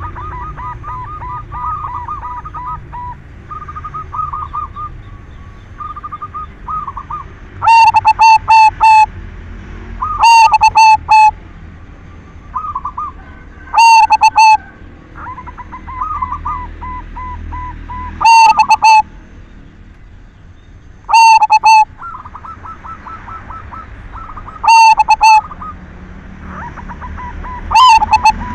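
Zebra dove (perkutut, silver colour form) cooing. Seven loud, close phrases come about every three to four seconds, each a quick run of several staccato coo notes, and they are distorted by clipping. Fainter cooing goes on underneath throughout.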